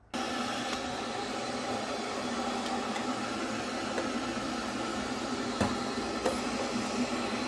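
Electric kettle heating water: a steady hiss and rumble that starts abruptly, with two light clicks a little past halfway.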